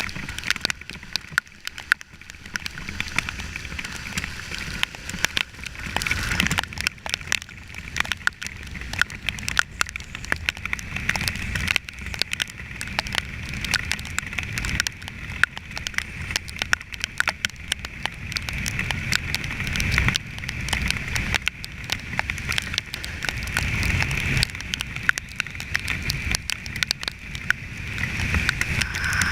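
Kawasaki Ninja 300 parallel-twin motorcycle riding along, engine note and wind rush on an on-board camera with no external microphone, with many sharp ticks of rain hitting the camera.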